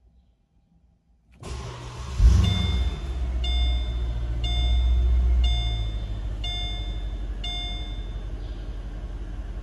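Mercedes-Benz SL550's 5.5-litre V8 cranked by the starter about a second and a half in. It catches with a loud flare of revs, then settles into a steady fast idle. Over it a seatbelt warning chime sounds about once a second, five or six times.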